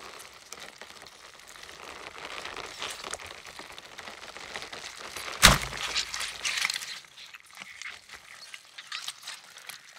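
Layered horror gore foley: wet squelching gush and crackling crunches building up, a sharp loud crack about five and a half seconds in, then more squelching that thins out.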